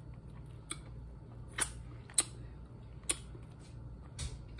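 Boiled shellfish shells cracking and snapping as they are peeled apart by hand, about five sharp clicks at irregular intervals over a faint low hum.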